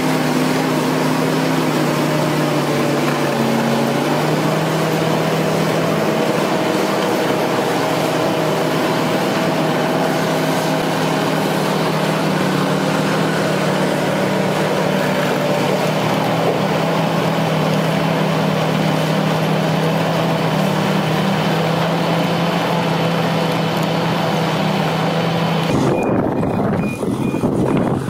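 Large crawler bulldozer's diesel engine running steadily under load; its pitch drops about four seconds in. It cuts off suddenly near the end.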